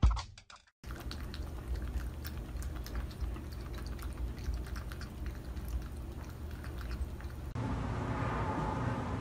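Quiet room noise with a low steady hum and scattered faint clicks.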